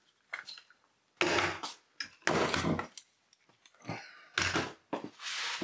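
One-handed bar clamps being taken off a drilling jig and set down on a wooden workbench top: a few short clattering knocks and scrapes.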